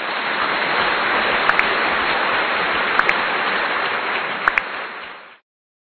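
Mouse-click sound effects, three double clicks about a second and a half apart, over a steady hiss that cuts off suddenly after about five seconds.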